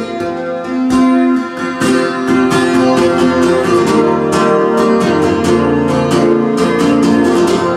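Steel-string acoustic guitar strummed in a steady rhythm, chords ringing between strokes.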